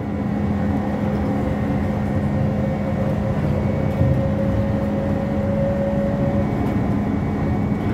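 Inside a MAZ-203T trolleybus under way: a steady electric hum and a level whine from its electric drive over rumbling road and tyre noise. The whine fades out a little past six seconds in.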